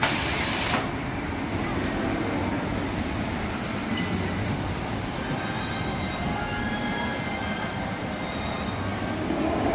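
Amusement-park ride machinery running with a steady rumble and faint high whines, after a short hiss in the first second.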